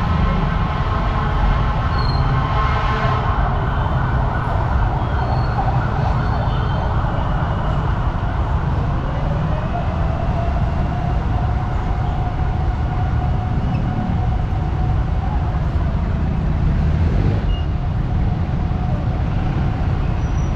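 Dense city road traffic of motorcycles and cars in a steady rumble. About nine seconds in, a tone rises slowly in pitch and then holds.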